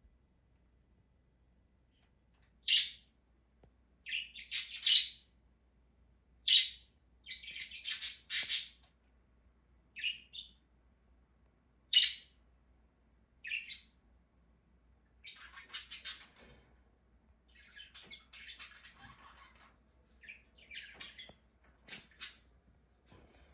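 A bird chirping and squawking: a string of short, sharp high-pitched calls, irregularly spaced, starting a few seconds in and growing fainter and more scattered toward the end.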